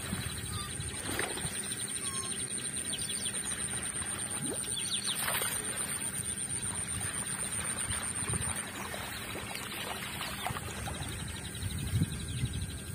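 Outdoor pond-side ambience: a steady high-pitched drone that stops about two-thirds of the way in, with faint bird chirps throughout and a brief louder knock or splash near the end.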